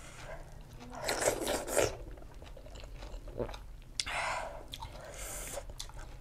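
Close-miked mouth sounds of a person eating: chewing and biting in irregular bursts with small clicks. The loudest burst comes about a second in.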